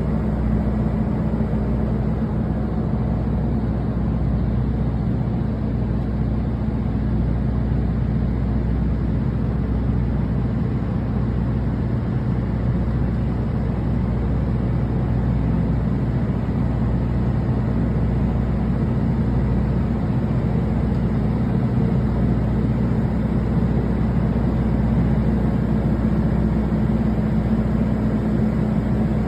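A boat's engine running steadily at constant speed: a continuous low drone with a steady hum, unchanging throughout.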